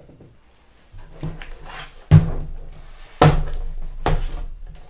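Dell Inspiron 15 laptop being turned over and handled on a wooden desk: a rustle of handling, then three knocks of the plastic case against the desk, the loudest about two seconds in, another just after three seconds and a lighter one about four seconds in.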